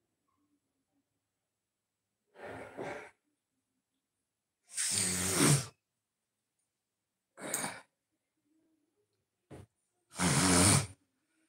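A person's loud, breathy breaths with some voice in them, in five short separate bursts; the loudest come about five seconds in and near the end.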